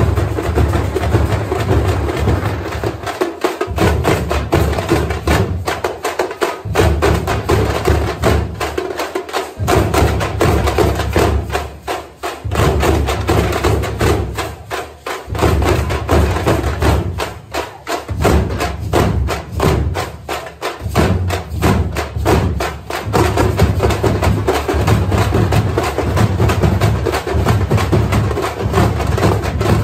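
A festival drum troupe playing together: many stick-beaten drums, shoulder-slung side drums and large deep drums, in a fast, driving rhythm. The deep beats drop out briefly a few times and then come back in.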